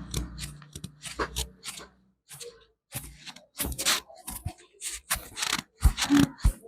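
Hands rubbing and stroking briskly over hair and scalp during a head massage, in a quick, irregular series of short scratchy strokes.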